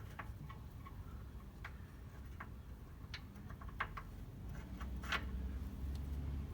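Scattered light metallic clicks and taps as a low-profile socket is fitted onto a suspension bolt head, with a low rumble building near the end.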